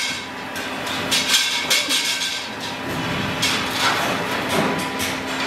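Chromed steel wheel rims clinking and clanking against one another and against metal tanks as a bundle is handled, in irregular sharp strikes over a steady low machine hum.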